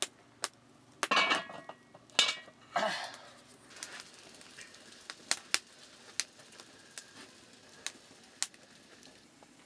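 Aluminium cooking pot, lid and ladle clanking together in a run of sharp, ringing metal clinks over the first three seconds as the lid goes onto the pot. After that only sparse single snaps, like a wood fire crackling beneath it.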